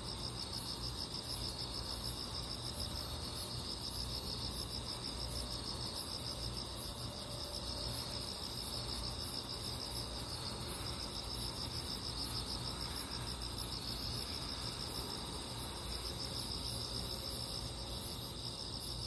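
Night chorus of crickets chirping: a steady, rapid pulsing trill with a higher continuous buzz above it, over a low steady hum.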